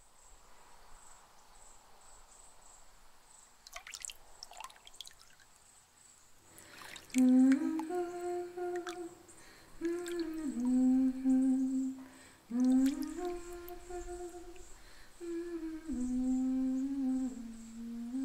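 A voice humming a slow melody in long held notes that step up and down, starting about seven seconds in after a few seconds of faint background hiss with a couple of soft clicks.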